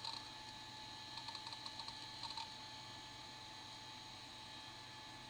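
Keys tapped on a computer keyboard: one click at the start, then a quick run of about a dozen keystrokes, over a steady electrical hum and whine from the running machine.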